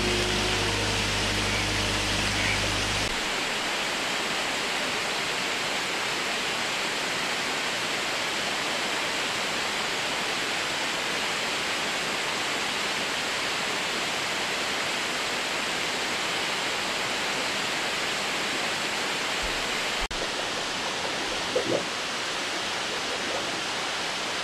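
Steady rush of running water, like a small waterfall spilling down a rock face, with a low hum under it for the first three seconds. The rush goes on unchanged after that, with a slight shift and a couple of faint knocks near the end.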